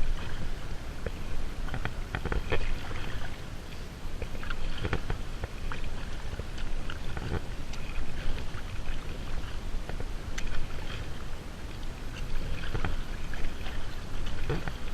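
Kayak paddling: the paddle blades dip and splash in the river at irregular intervals over a steady low rumble.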